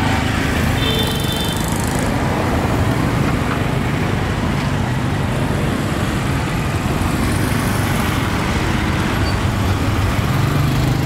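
Steady street traffic noise: motor vehicles running past, engines humming low, with a brief high-pitched tone about a second in.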